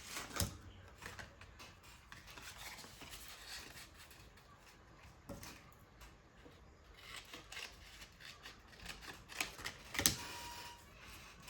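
Paper being handled and worked by hand: irregular rustling, scraping and small clicks, with a sharp click about half a second in and a louder one near the end.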